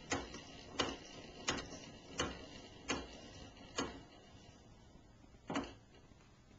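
A wooden-geared clock being wound by hand crank, its weight drawn up: evenly spaced clicks of the winding ratchet, a little more than one a second, stopping after about four seconds, with one more click near the end.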